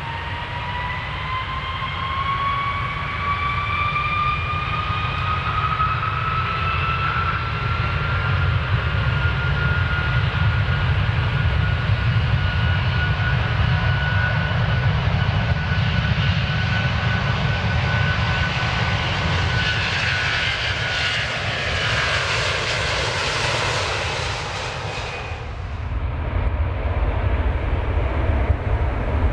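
Jet airliner engines: a whine that rises in pitch over the first several seconds and then holds steady over a low rumble. A hiss builds up and cuts off suddenly near the end, leaving the rumble.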